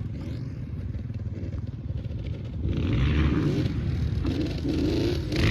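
Off-road vehicle engine running over a low rumble, getting louder as the revs pick up about three seconds in.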